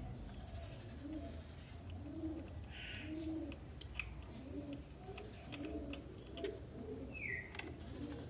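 A dove cooing, a steady run of low arched notes. Faint sharp clicks of small steel pistol parts being handled sound here and there, and a short falling bird chirp comes near the end.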